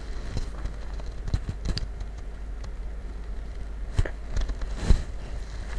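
Small scratches and taps of a thin paintbrush working paint into a coarse fabric bag, irregular and soft, with two louder knocks about four and five seconds in.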